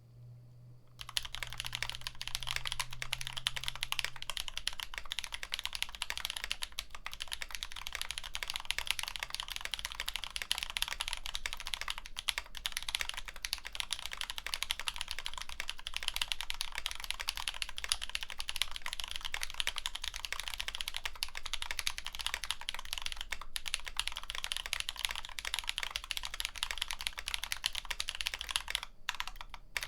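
Fast, continuous typing on a Nullbits Nibble65 mechanical keyboard with Drop Holy Panda tactile switches, an FR4 plate and GMK keycaps, a dense stream of key clacks. The typing starts about a second in and pauses briefly near the end.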